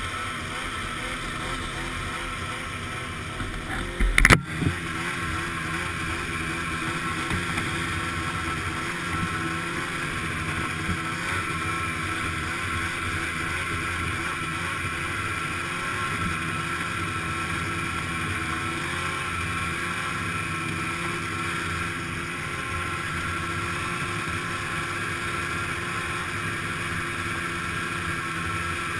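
Snowmobile engine running steadily under way, heard from aboard the sled. A few loud sharp knocks come about four seconds in.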